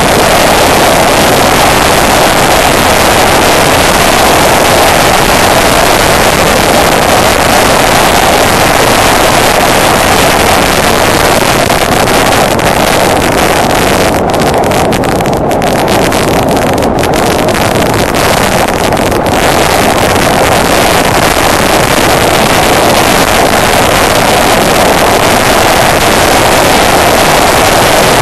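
Honda Deauville NT650V motorcycle (a V-twin) riding along at road speed, heard as a steady, loud rush of wind noise on the bike-mounted microphone mixed with engine and road noise. The hiss thins for a few seconds about halfway through.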